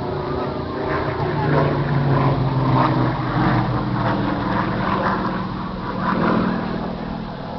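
Engine of an aerobatic propeller plane droning overhead, its pitch rising and falling as it manoeuvres.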